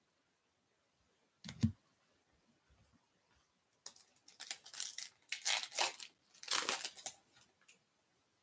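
A single thump about a second and a half in. Then a Topps Holiday baseball card pack's wrapper is torn open and crinkled in a series of rustling, crackling bursts lasting about four seconds.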